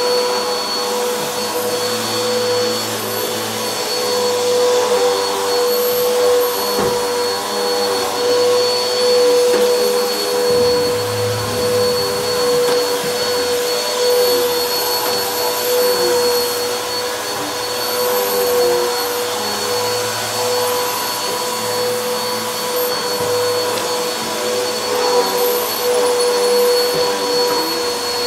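Helix Turbo upright vacuum cleaner running steadily on carpet, with a constant whine over its motor noise and small swells in loudness as it is pushed back and forth.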